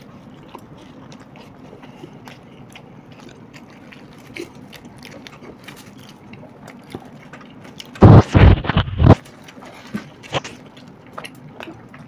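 Close-miked eating: chewing and paratha being torn and dipped by hand, with many small clicks. About eight seconds in comes a loud burst of three or four sharp blasts lasting about a second.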